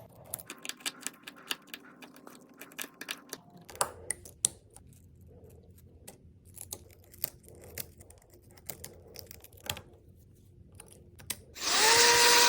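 Irregular sharp clicks and light scraping of a tool picking broken back-glass fragments off an iPhone 12 Pro. Near the end a loud steady hiss with a held tone starts.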